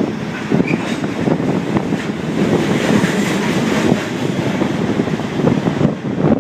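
Freight train rolling past, its wheels clattering over rail joints in a steady loud rumble.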